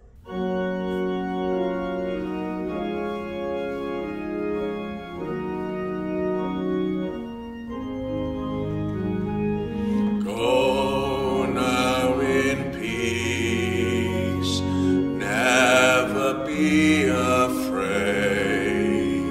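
Organ playing slow, sustained chords that change every second or two, with singing voices joining about ten seconds in.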